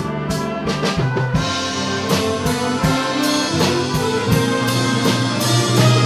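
Community concert band playing a film-music medley, with brass prominent over a steady drum beat; the full band fills out and grows louder about two seconds in.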